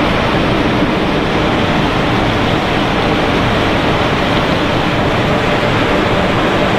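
Steady running noise of snack-food production line machinery: a constant rushing hum with a faint steady tone through it and no distinct knocks or breaks.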